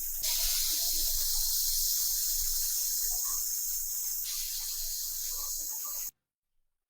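Steady high hiss, like spray or escaping air, that shifts level twice and cuts off abruptly about six seconds in.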